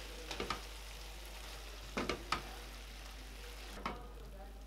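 Chicken pieces with fresh coriander sizzling in a frying pan, a steady hiss. A wooden spoon stirring them knocks against the pan twice about a third of a second in and again a few times about two seconds in.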